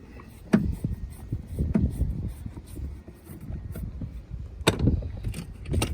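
Handling noise and a few sharp knocks and clicks of hand tools and metal parts as a bolt is screwed into a car door, two of the knocks near the end.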